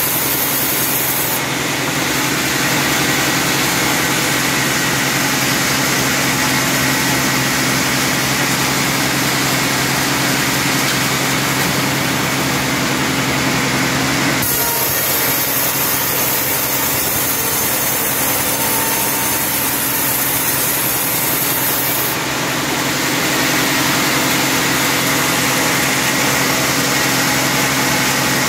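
Band sawmill cutting through a teak log, a loud, steady sawing noise from the blade and machine. The sound shifts abruptly a few times along the way.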